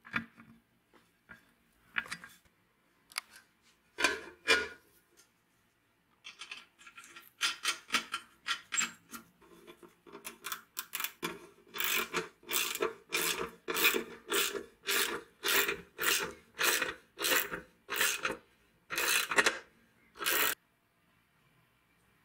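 A few scattered clicks, then a ratchet wrench clicking in repeated short strokes, about one and a half a second, as a nut is run down. It stops suddenly near the end.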